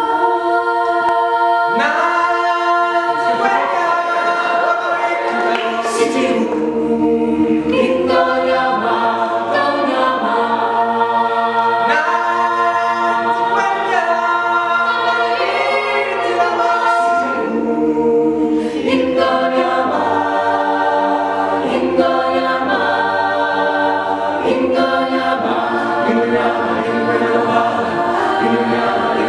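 Mixed-voice a cappella group singing a Disney medley in close harmony: held chords that begin all at once and shift every second or two.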